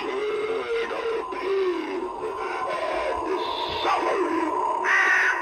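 Spirit Halloween Harvester animatronic playing its sound routine through its built-in speaker: a voice speaking over spooky background music.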